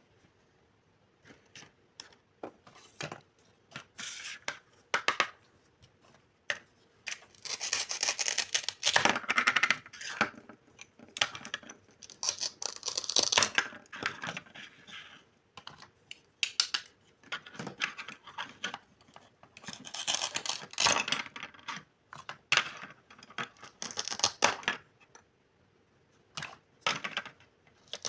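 Small kitchen items being handled: irregular clicks, light knocks, scrapes and rustles in uneven bursts.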